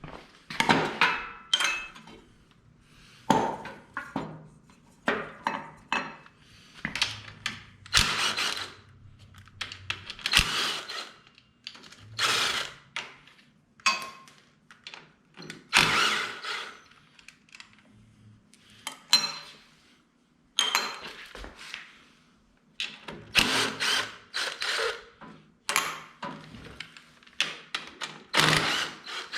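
Tools and metal parts clanking and clattering in irregular short bursts while the engine of a lawn tractor is opened up to get at the valves.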